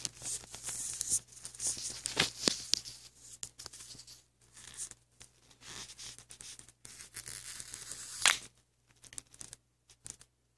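Crackling and scratching as hands work at a Pebble smartwatch's glued faceplate over newspaper, with a sharp click about eight seconds in.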